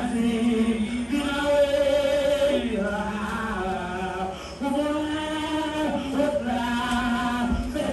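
A slow prayer chant sung in long held notes that move to a new pitch every second or so.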